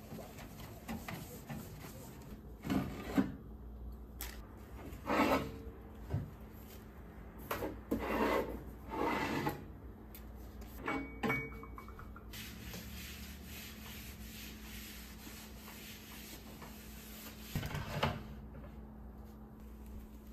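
Cleaning cloth wiping kitchen surfaces: a handful of irregular rubbing swipes with quiet gaps between.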